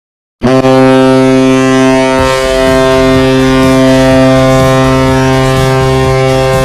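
Vegas Golden Knights goal horn: one long, steady horn blast that starts suddenly about half a second in and holds at one pitch.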